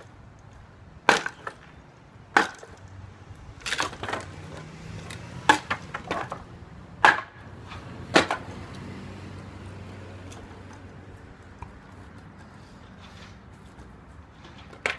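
Hand tools, a hammer and a meat tenderizer, smashing junk in a dumpster: about ten sharp, irregularly spaced strikes over the first eight seconds, then only faint knocks.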